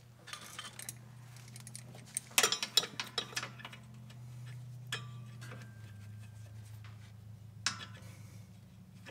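Adjustable wrench clinking against a steel pulley bolt and bracket on a zero-turn mower as the bolt is loosened: a quick run of metal clinks about two and a half seconds in, then single clinks around five and eight seconds, over a low steady hum.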